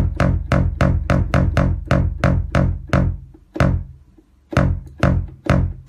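Psytrance bassline from the Sylenth software synthesizer playing back: a fast, even run of short, punchy bass notes, each with a sharp attack and quick filtered decay. It stops about three and a half seconds in for about a second, then starts again.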